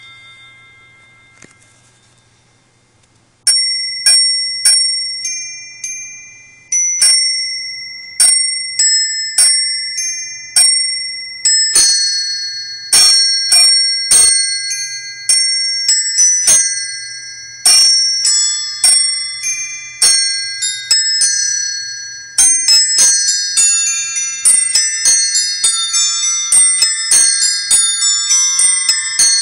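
A set of electric caroling Christmas bells, small metal bells struck one at a time to play a carol tune, each note ringing on. The set is working as it should. The tune starts about three seconds in after a short pause and grows busier near the end, with notes overlapping.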